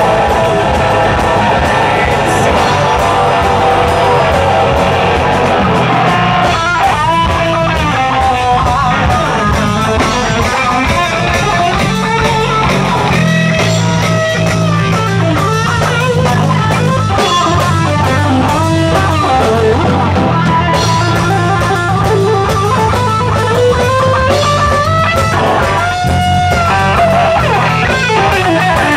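Live metal band playing at full volume: heavily distorted electric guitars and bass over drums. From about six seconds in, high notes that bend up and down in pitch ride over the riff.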